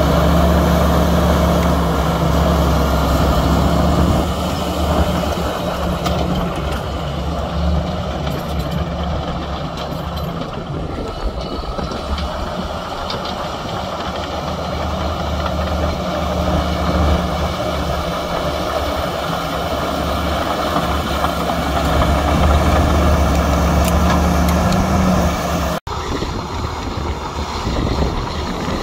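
Heavy diesel engines of earthmoving machines, Komatsu bulldozers and dump trucks, running at work: a steady low engine drone that eases off in the middle and builds again. It breaks off for an instant near the end and carries on.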